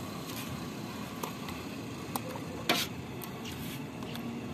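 A few light clicks and one sharper knock about halfway through, from a taho vendor's scoop tapping against his aluminium tofu bucket as he skims the silken tofu.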